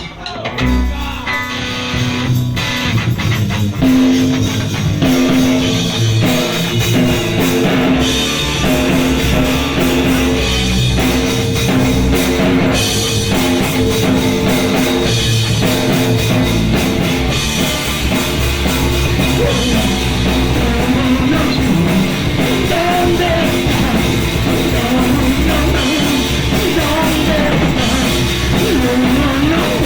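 Live punk rock band playing loud, with guitar and drum kit; the full band comes in about a second in and keeps a steady driving beat.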